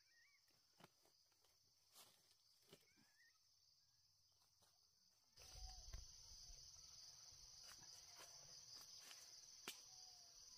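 Faint, steady high-pitched chorus of insects, which grows louder about five seconds in, with scattered light clicks and a couple of small bird chirps.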